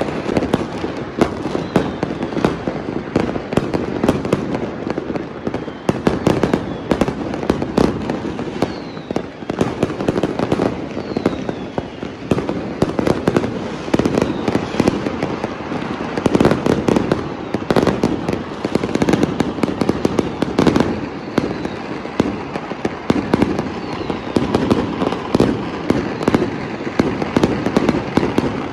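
Many boxed multi-shot fireworks going off at once from all around: a continuous barrage of overlapping bangs and crackling shell bursts with no pause.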